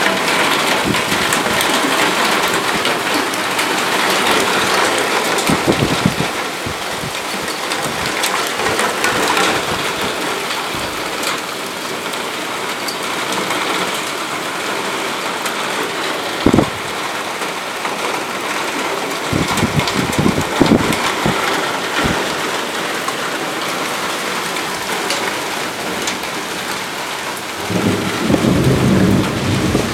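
Heavy rain pouring down steadily, a dense hiss of water on surfaces. It is broken by a few brief low thumps, and a stronger low rumble comes in near the end.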